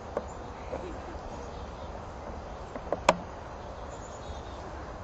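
Outdoor background with a steady low rumble and a few sharp snaps, the loudest about three seconds in.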